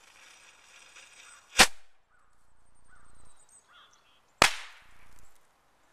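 Black Cat bottle rocket fired from a homemade tube launcher: a faint fuse hiss, a sharp crack about a second and a half in as it leaves the barrel, a faint rising hiss, then a second loud bang about four and a half seconds in as its charge explodes in the snow pile.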